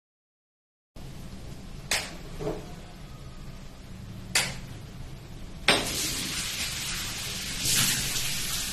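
Bathroom tap turned on with a sharp clack about two-thirds of the way in, then water running steadily into the sink and splashed onto a face near the end. Before that, a couple of sharp clicks over a low hum, after a second of dead silence.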